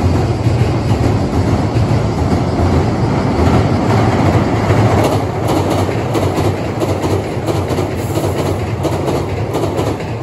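Hankyu 7000 series ten-car electric train passing at speed over a steel railway bridge: a continuous rumble of wheels on rails, with rapid clicking of the wheels over the rail joints. The sound starts to ease near the end as the last cars go by.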